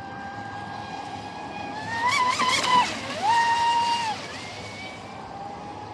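Radio-controlled Sonicwake V2 speedboat's brushless motor whining as the boat runs across the lake. About two seconds in, the pitch climbs and wavers as it is throttled up. It dips briefly, is held higher for about a second, then eases back to a steady lower whine.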